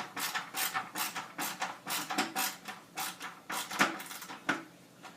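Screwdriver driving a screw into the helmet's plastic ear: a quick run of clicks, about five a second, that stops near the end.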